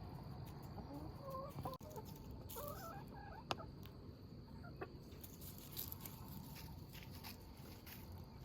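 Chickens clucking softly in a few short calls, with a couple of faint clicks.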